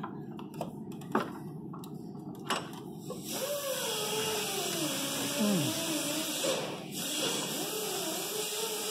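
A few light knocks as the replacement alternator is worked down into its place in the engine bay. About three seconds in, a long pitched sound that wavers up and down in pitch begins over a steady hiss, its source not shown.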